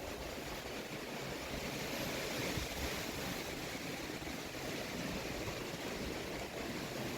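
Steady rushing noise of strong typhoon winds.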